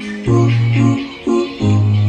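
Background music: held keyboard chords, with a deep bass note coming in about a quarter second in and again near the end.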